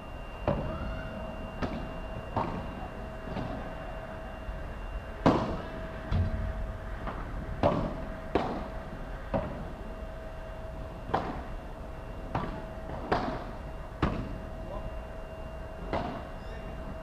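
Padel rally: the ball popping off solid padel rackets and the court's glass walls and turf, sharp hits at an uneven pace of roughly one a second, the loudest about five seconds in, over a faint steady hum.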